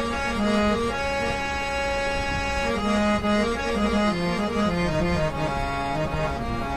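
Sa Re Ga Ma Company portable folding harmonium with two sets of Jeevan Lal Rati Lal Mistri reeds, played as a melody of short moving notes with one longer held note about a second in. It is a sound test of the new instrument.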